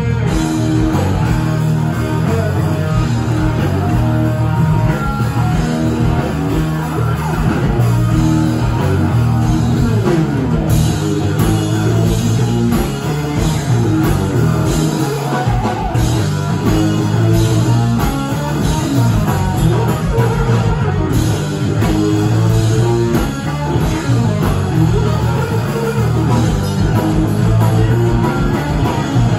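Live blues-rock trio playing: a lead electric guitar with bent notes over electric bass and a drum kit.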